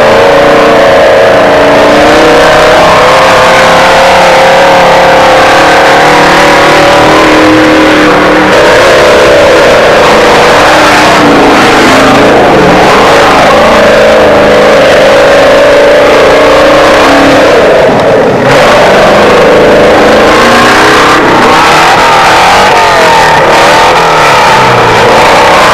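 Off-road trials vehicle's engine revving loudly in mud, its pitch rising and falling repeatedly.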